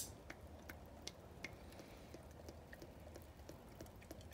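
Faint trickle of power steering fluid pouring from a quart bottle into an aluminium PSC power steering reservoir, with small irregular ticks over a low hum.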